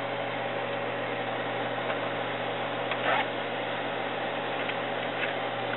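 Carousel slide projector's cooling fan running with a steady whir and low hum. There is a brief handling sound about three seconds in as the remote control's cord is plugged into the back.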